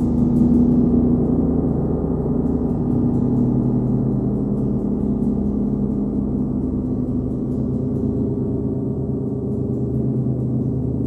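A 39-inch Nepalese wind gong, kept going with a hard rubber ball mallet, sounds a sustained, dense wash of many overlapping low tones at a steady level.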